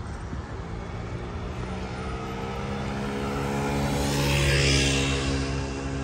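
A motor engine passing by, a steady hum that grows louder to a peak about four and a half seconds in and then fades a little.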